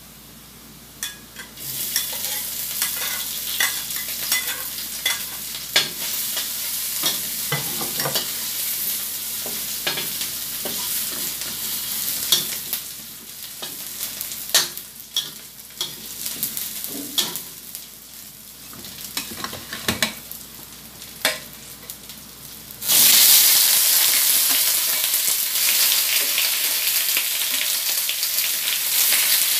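Chopped garlic frying in oil in a steel wok, sizzling, with the scrape and clink of a metal spatula stirring it. About 23 seconds in, raw chicken pieces go into the hot pan and a much louder, steady sizzle starts.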